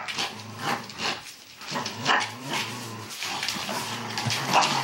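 Border collie play-growling while tugging a toy, in long low rumbling stretches broken by a few short sharp barks.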